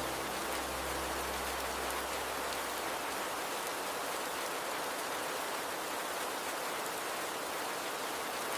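Steady rain falling with a flowing river, an even hiss with no distinct drops standing out. A low hum underneath fades out about three seconds in.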